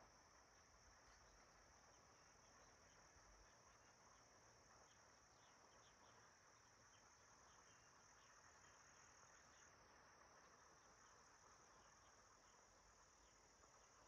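Faint, steady high-pitched buzz of insects, with a slight step up in pitch about ten seconds in, over a soft hiss of background noise.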